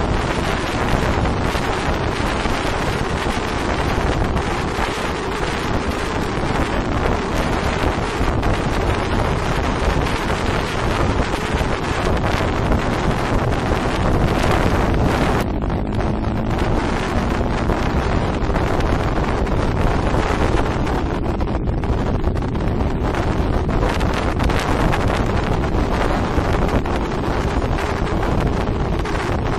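Steady wind rush buffeting the microphone of a camera on a moving motorcycle, with the motorcycle's running underneath.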